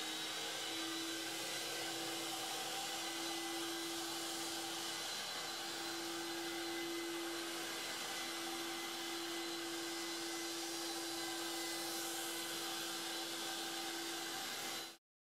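Carpet-cleaning extraction machine's vacuum motor running steadily with a constant whine, cutting off suddenly near the end.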